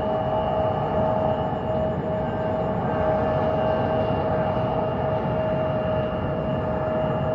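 Airbus A320's twin IAE V2527-A5 turbofan engines running steadily at take-off, a loud rushing roar with a constant whine.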